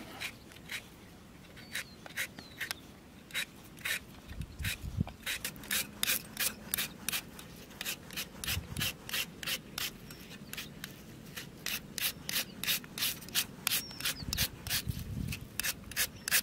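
Metal Y-peeler scraping across a raw green mango, shaving the flesh into thin strips: short rasping strokes, sparse at first, then coming steadily at about two to three a second.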